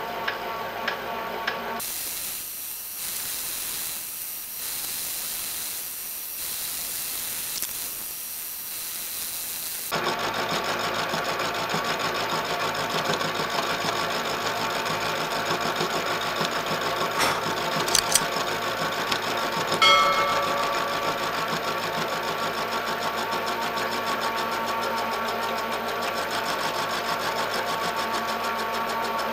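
Small milling machine running with a steady motor whine as an end mill cuts along the edge of a clamped metal bar, with cutting chatter. From about two to ten seconds in, a steady hiss takes over, and later a few sharp clicks and a brief ringing tone stand out.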